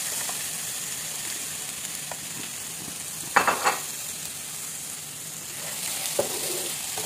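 Raw shrimp sizzling in a hot non-stick frying pan as they are stirred. There is a cluster of knocks against the pan a little past halfway through and another knock near the end.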